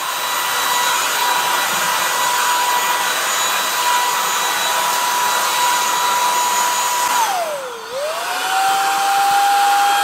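Greenote GSC50 cordless stick vacuum cleaner running as a handheld, a steady high motor whine over a rush of suction air. About seven seconds in the whine drops sharply in pitch, then climbs back and holds at a somewhat lower pitch.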